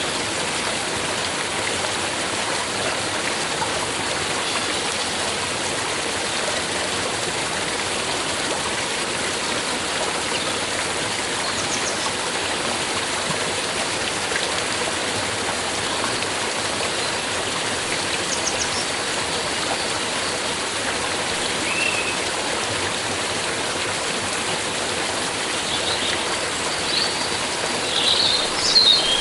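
Stream water flowing with a steady, even rush. A few short high bird chirps come through now and then, with a louder burst of chirping near the end.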